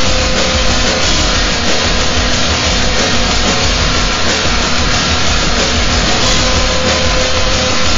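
Experimental noise music: a loud, dense wall of distorted noise with a few steady tones held through it and a throbbing low end.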